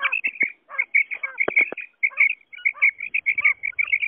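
Quail calling: a rapid run of short, high chirping notes, several a second, with a brief pause about two seconds in and a few sharp clicks among them.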